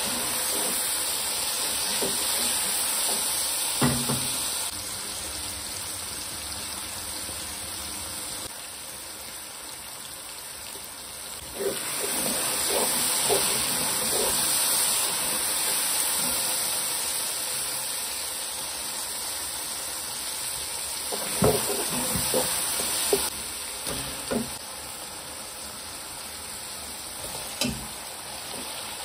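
Onion and tomato masala sizzling in a non-stick pot as a wooden spoon stirs and scrapes through it. The sizzle rises and falls, and the spoon knocks against the pot now and then, in a cluster a little past the middle.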